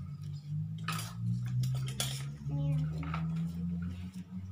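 Kitchen utensils and dishes clinking and clattering as they are handled, with two sharper clatters about a second apart, over a steady low hum.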